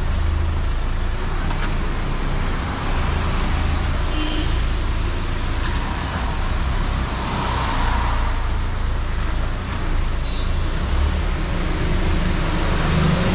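Steady road-vehicle noise: a continuous low rumble of traffic, without speech.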